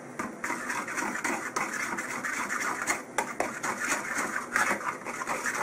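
A fork stirring thick mayonnaise-based sauce in a wooden bowl: a continuous run of irregular wet scrapes and small clicks as the tines drag through the sauce and knock against the bowl.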